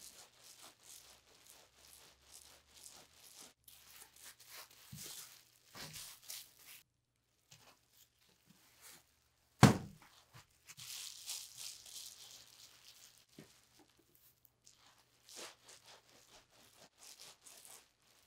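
Hands rolling a towel-wrapped wet-felting bundle back and forth on a wooden table: soft rubbing with faint clicks, a single sharp thump about ten seconds in, then crinkling plastic sheeting and bubble wrap as the bundle is opened and the wet wool turned.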